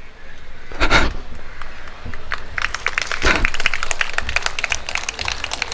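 Audience applauding, the clapping building up about two and a half seconds in and thinning out near the end.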